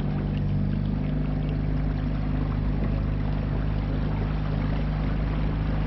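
Outboard motor of a small FRP river-crossing boat running steadily at one pitch, under the rush of water and wind noise.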